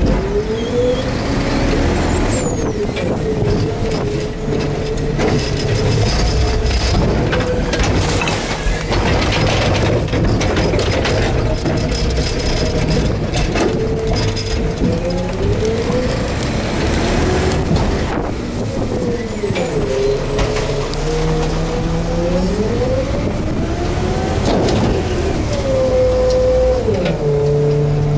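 Garbage truck's engine and hydraulic packer running, with a whine that rises and falls several times as the packer cycles through the hopper. Wind buffets the microphone.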